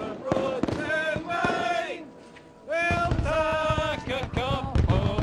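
A group of voices singing long held notes together in harmony. The singing breaks off about two seconds in and comes back louder, with a deep low rumble beneath it.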